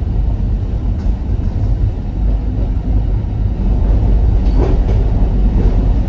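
Alishan Forest Railway train running along the track, heard from inside the passenger car: a steady low rumble of the carriage in motion.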